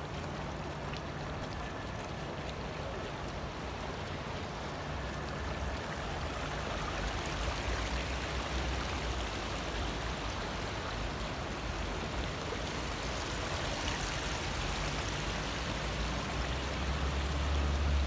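Small fountain jet bubbling up and splashing into a pond: a steady rush of water that grows a little louder partway through. A low rumble underneath swells near the end.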